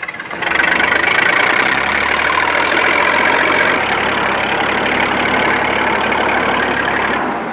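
McCormick-Deering W40 tractor's six-cylinder engine running loud and steady as the tractor drives up. It comes in sharply about half a second in and drops away near the end.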